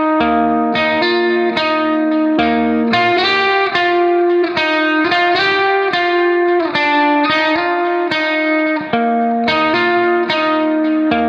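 Instrumental background music: a melody of plucked notes, played one after another at a steady pace.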